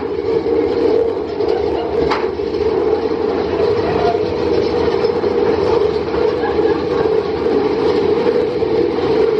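Big Thunder Mountain Railroad mine-train coaster cars running along the track, a steady loud rumble with a single sharp clack about two seconds in.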